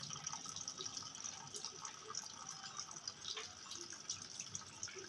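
Running water trickling and splashing, with many small drips and spatters over a steady hiss.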